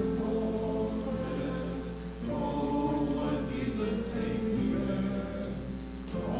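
Slow hymn music in sustained chords, each held for a couple of seconds before moving to the next, with a steady low hum underneath.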